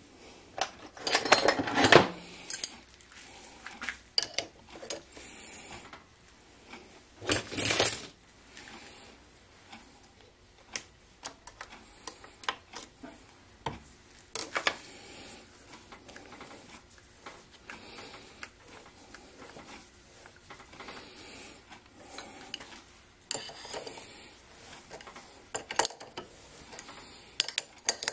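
Metallic clinks and scrapes as a Craftsman 109 lathe's three-jaw chuck is turned by hand, cutting a thread with a tap held in the tailstock chuck. Two louder scraping stretches, about a second in and near eight seconds, and a run of sharp clinks near the end.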